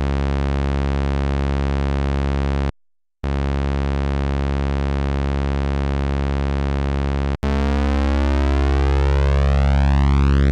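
Two Behringer 2600 Blue Marvin analog synthesizers each holding the same low sawtooth note from oscillator 3: first one synth alone, then after a short break the other alone, then both together near the end. Played together, the two nearly identical, very slightly detuned sawtooths beat against each other, giving a slow sweeping phasing sound.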